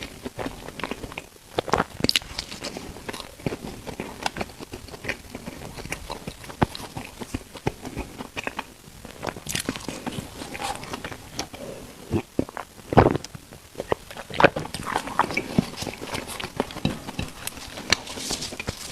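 Close-miked eating sounds: biting and chewing bread, with irregular wet smacks and crackly clicks, one sharper bite about two-thirds of the way through.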